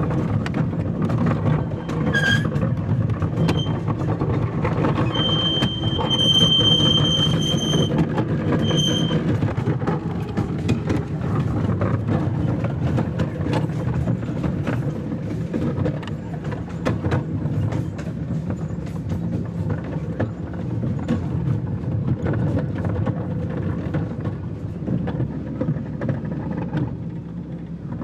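Kids' park ride train, a small diesel locomotive pulling wooden cars, rumbling along its track with a steady run of clicks from the wheels. A high, steady squealing tone sounds briefly about two seconds in and again for a few seconds from about five to nine seconds in; the train grows a little quieter near the end.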